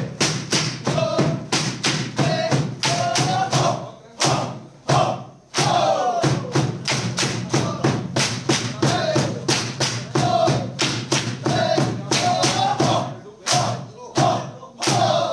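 Bamboo poles clapped together and knocked on the stage floor in a steady rhythm of about four strikes a second for a bamboo dance, with voices chanting over the beat. The strikes break off briefly about four seconds in, then pick up again.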